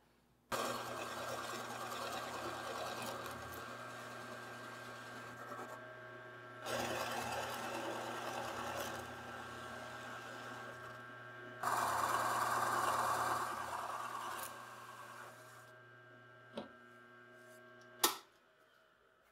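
Bench drill press running, its Forstner bit boring holes through a walnut board: a steady motor hum with three bouts of louder cutting noise, the last the loudest. It fades after about fifteen seconds, then a click and a sharp knock near the end.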